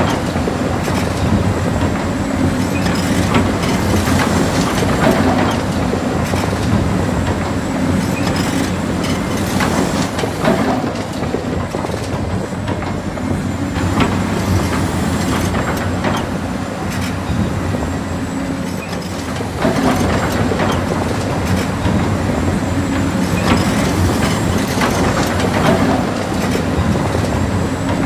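Electric motors and gearboxes of a toy-scale RC excavator whirring steadily while it digs, with many small clicks and knocks from the gears, tracks and bucket working the soil.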